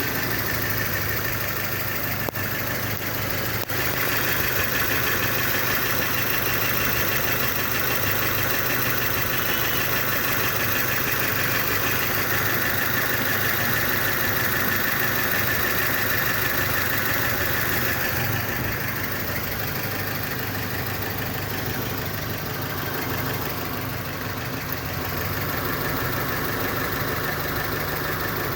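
Kia Sportage engine idling steadily, with a higher-pitched steady noise over it that eases a little about eighteen seconds in; this is the unexplained sound the owner suspects comes from the exhaust.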